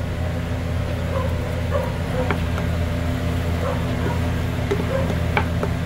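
Steady low machine hum, with a few short knocks of a wooden spoon against an aluminium pot as mashed potato is stirred.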